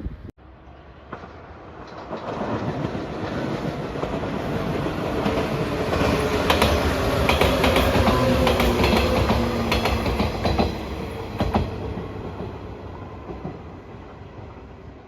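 A train passing close by. Its rumble builds, peaks with rapid clacking of wheels over rail joints about halfway through, then fades away.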